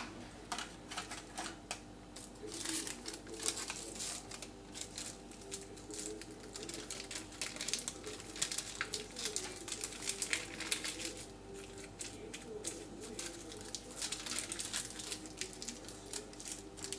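Paper crinkling and rustling in quick irregular crackles as it is folded by hand around a small soap-like bar, with the plastic film on the counter crackling under the hands.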